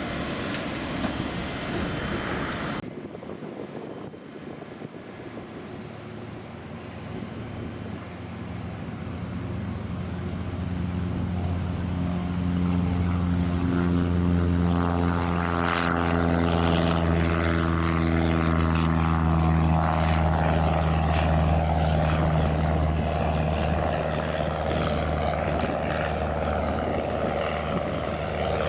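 Propeller airplane engine growing louder as the plane approaches, loudest about halfway through, with its steady drone dipping slightly in pitch as it passes. A different, noisier sound cuts off abruptly about three seconds in.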